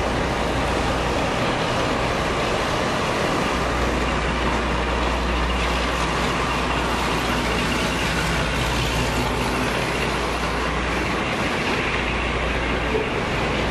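Class 52 'Western' diesel-hydraulic locomotive, its twin Maybach diesel engines running as it draws slowly past, then its coaches rolling by. A steady, even drone with a low hum underneath.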